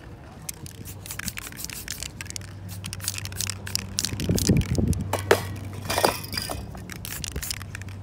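Fingertips rubbing and dabbing wet spray paint on a paper stencil picture, giving irregular scratchy crackles and scrapes, with a few duller knocks near the middle. A low steady hum comes in about two seconds in.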